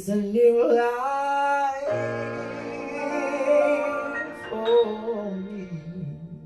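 A man singing a slow, free-tempo ballad phrase into a microphone, with long held notes that slide in pitch, over soft instrumental backing. The phrase fades out near the end.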